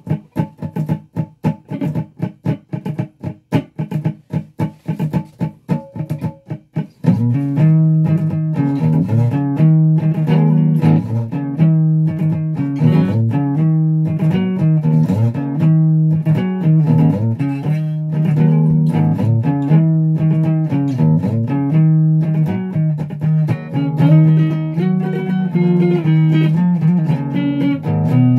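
Electric guitar played solo. It opens with about seven seconds of short, choppy picked notes with gaps between them, then breaks into a continuous run of sustained notes and riffs.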